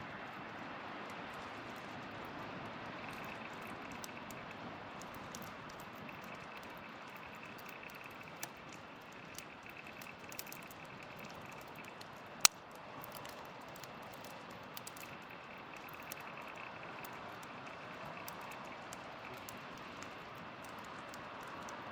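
Wood campfire crackling: small irregular pops over a steady hiss, with one sharp loud pop about halfway through.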